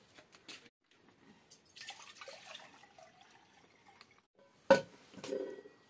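Water poured from a brass water pot into a steel tumbler, with one sharp metallic clink of the vessels about three-quarters of the way through.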